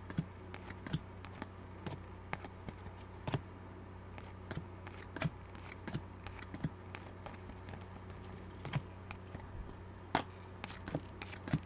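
Football trading cards being flipped through one at a time in the hands, giving irregular light clicks and slides of stiff card stock over a low steady hum.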